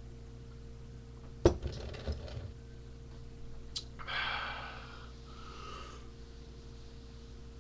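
A sharp knock about a second and a half in, with a few lighter clicks after it, then a person drawing in a breath or sniffing at about four seconds, over a steady electrical hum.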